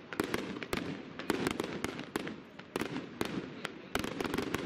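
Aerial firework shells bursting overhead: a rapid, irregular string of sharp cracks and bangs, several a second.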